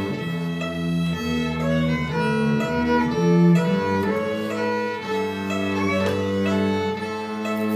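Instrumental music: several sustained notes sound together, moving to new notes about every half second to a second at a steady level.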